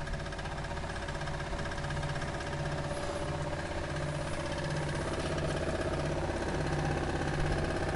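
Steel 24-pole magnet rotor spinning up on its shaft, a steady running hum that slowly gets louder, with a low throb repeating about twice a second. It carries a slight knock that the owner puts down to well-worn bearings.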